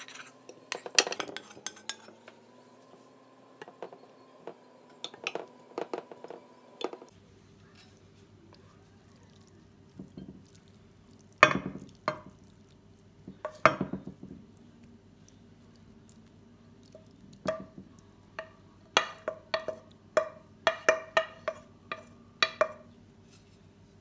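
Food being moved between cookware: fried potato wedges slide out of a pan into a ceramic baking dish, then minced meat is scraped and spooned from a frying pan onto them. Irregular clattering knocks of a utensil against the pan come through, with a quick run of ringing taps near the end.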